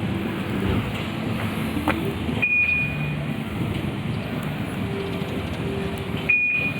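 Perodua Alza engine running steadily, with two high electronic beeps: one about two and a half seconds in and a shorter one near the end.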